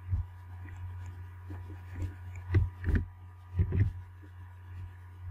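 A steady low electrical hum, with a handful of dull thumps and clicks: one right at the start, two loud ones about two and a half and three seconds in, and two more just before four seconds.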